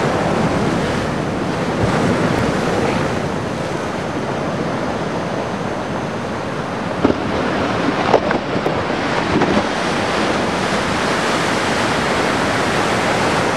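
Ocean waves breaking and washing in a steady rush, with wind on the microphone. A couple of short knocks about halfway through.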